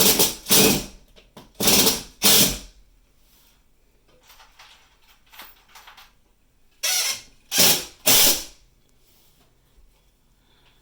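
A power tool run in short bursts, about half a second each: two near the start, two more about two seconds in, then three in a row about seven seconds in.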